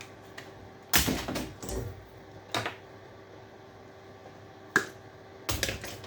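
Scattered knocks and clatters of scrap electrical parts being handled and dropped: a burst of clattering about a second in, single sharp knocks a little later, and another clatter near the end, over a faint steady hum.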